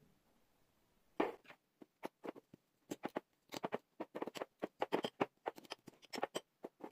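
Fork crushing whole garlic cloves in olive oil: after a quiet first second, a quick, irregular run of small taps and clicks that grows busier toward the end.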